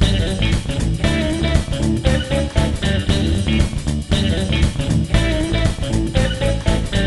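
Background music with guitar and bass guitar over a steady drum beat.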